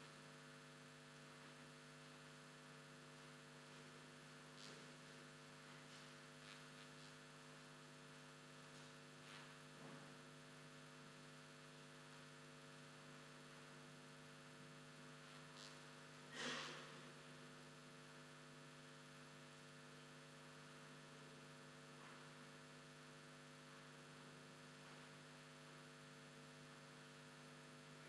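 Near silence with a steady low electrical hum and its overtones, a few faint clicks, and one brief soft noisy sound about halfway through.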